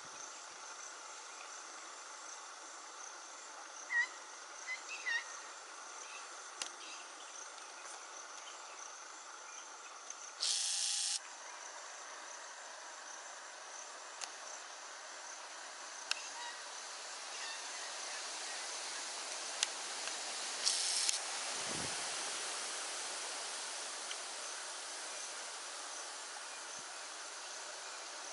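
Steady insect chirring with a high hiss, a few short high chirps about four to five seconds in, and two brief, louder bursts of buzzing hiss, one about ten seconds in and one about twenty-one seconds in.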